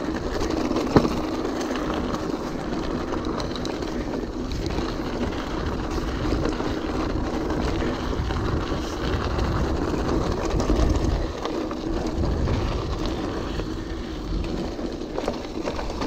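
Orbea Alma hardtail mountain bike riding over a rough, rocky trail: steady tire noise and rattling of the bike, with wind rumbling on the microphone and a sharp knock about a second in.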